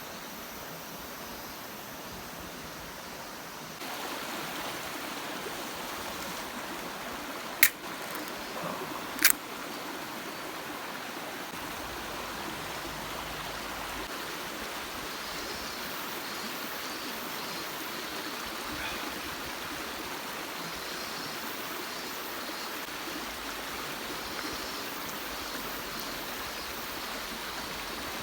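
Steady rush of flowing water, like a stream, with two sharp clicks about a second and a half apart some eight seconds in.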